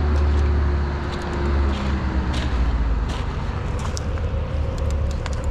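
A heavy engine running with a steady low rumble, its tone sinking slightly over the first couple of seconds, with a few light clicks over it.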